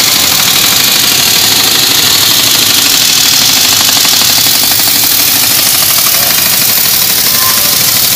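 Loud, steady mechanical noise with a strong hiss.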